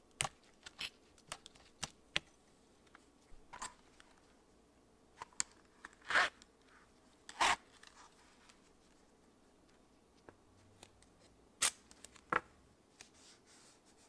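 Hands working leather pieces on a cutting mat: a scatter of small sharp clicks and taps, with a few short rasping scrapes around the middle and again near the end.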